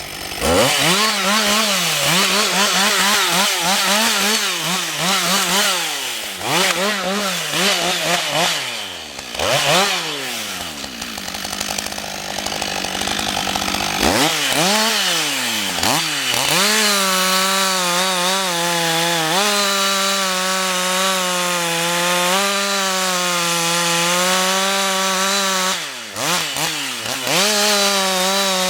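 Husqvarna 562 XP two-stroke chainsaw engine, revved up and down in quick blips, then held at high, nearly steady revs for about ten seconds. Near the end the revs dip sharply and climb back.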